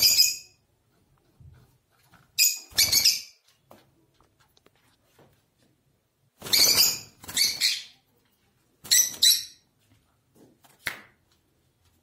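Peach-faced lovebirds giving short, shrill, harsh calls, mostly in quick pairs a few seconds apart.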